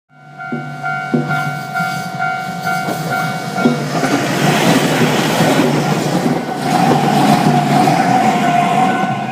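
A Chikuho Electric Railway tram passes a level crossing while the crossing's warning bell rings in an even repeating pattern. The tram's running noise builds from about four seconds in and is loudest near the end.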